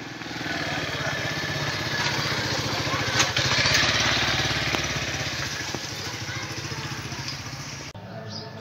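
A small engine running with an even, rapid pulsing beat. It grows louder over the first three or four seconds, slowly fades, then cuts off abruptly near the end.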